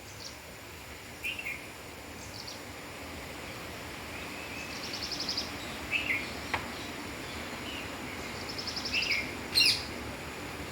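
Small birds calling: short chirps that drop in pitch every few seconds, two rapid buzzy trills, and one loud sharp call near the end, over a steady background hiss.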